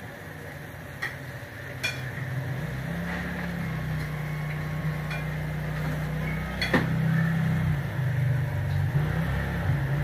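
Pot of ginger and lemongrass tea at a rolling boil on the stove: a steady low rumble that grows louder about two and a half seconds in, with a few sharp clicks.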